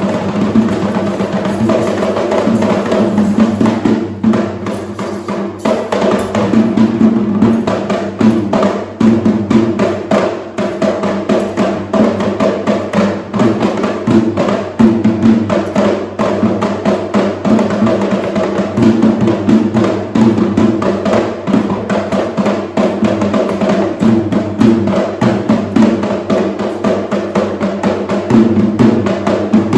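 Traditional Sri Lankan drums played in a fast, dense rhythm, stroke after stroke, over a steady held tone.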